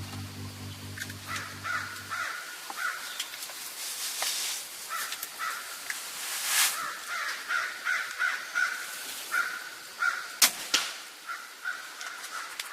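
Birds calling outdoors in short, repeated, harsh calls, as crows do. Background music fades out in the first two seconds, and a sharp click or snap sounds about ten and a half seconds in.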